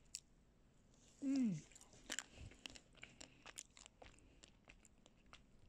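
Crunching and cracking of a chocolate-coated ice cream bar's shell being bitten and chewed, a scatter of small sharp clicks. About a second in, the loudest sound is one short vocal sound that falls in pitch.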